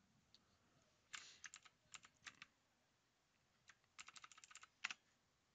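Typing on a computer keyboard: two short runs of keystrokes, the second ending in a louder single key press.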